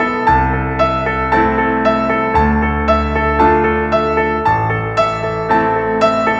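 Background music: a gentle keyboard melody with notes struck about twice a second over low bass notes that change about every two seconds.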